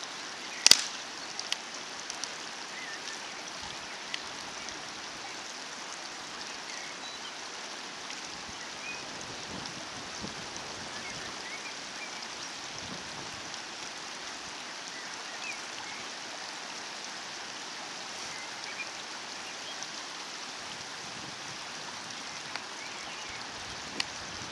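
Steady rushing noise of running water, with a sharp knock under a second in, a few lighter clicks, and scattered faint high chirps.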